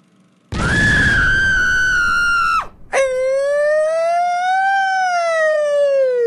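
A loud, high-pitched scream over a rushing, rumbling burst of noise, starting half a second in and cutting off after about two seconds. Then a long wail follows, slowly rising and falling in pitch like a siren.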